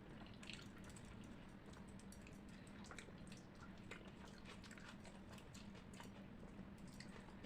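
Faint, close-miked chewing of rice and spicy chicken curry: many small irregular mouth clicks and smacks over a faint steady low hum.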